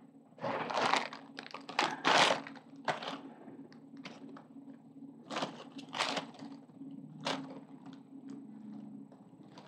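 Clear plastic zip-top bag crinkling and rustling in bursts as a hand rummages through it and pulls out lace and ribbon, over a faint steady low hum.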